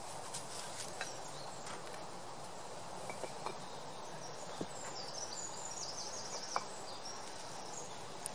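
Steady outdoor background hiss with a few light knocks as bricks are lifted off a beehive's metal-covered roof, and a brief high chirping about five seconds in.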